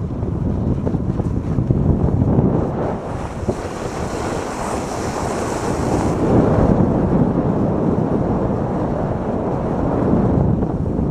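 Sport toboggan runners rumbling over packed snow at speed, with wind buffeting the microphone. From about three seconds in, a higher scraping hiss joins for a few seconds as the sled slows through a bend.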